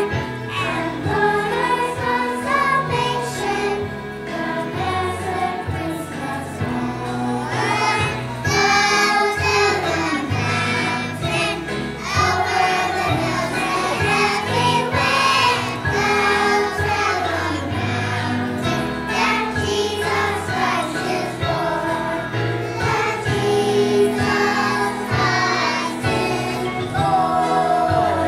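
A group of young children singing together in unison, over instrumental accompaniment with a steady bass line.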